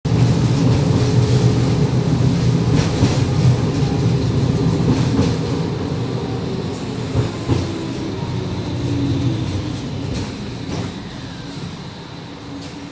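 Končar TMK 2200 low-floor tram running on its rails, heard from inside by the doors: a steady low rumble with scattered knocks from the wheels and track. It slows and grows quieter toward a stop, with a falling whine in the middle as it brakes.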